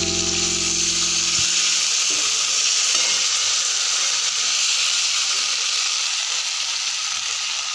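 Food frying in hot oil in a pan: a steady sizzling hiss.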